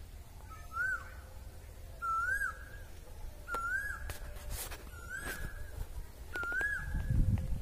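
A bird calling repeatedly: five identical short whistled notes, each rising then dropping, about a second and a half apart. A low rumble builds near the end.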